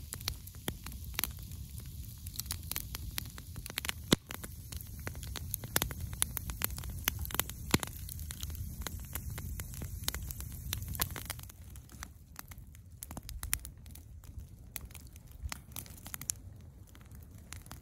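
Wood campfire crackling and popping with a steady low rumble underneath. The crackles are dense at first, then thin out and get quieter in the last few seconds.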